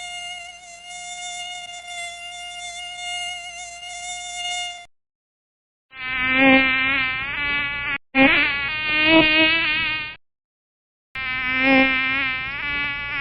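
Mosquito wing whine: a steady high-pitched whine for about five seconds, then after a second of silence several whines that waver up and down in pitch, as when the insect flies close past the ear, with another brief silent gap between them.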